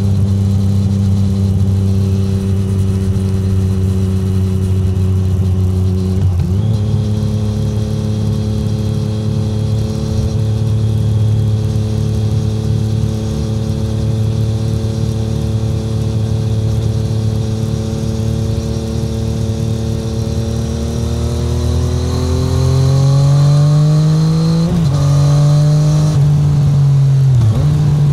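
Triumph Street Triple 765R's three-cylinder engine through an SC Project SC1-R titanium exhaust, heard from onboard with no wind noise. The revs step up abruptly once about six seconds in, then hold steady, and near the end the bike accelerates, revs climbing with two short dips as it shifts up.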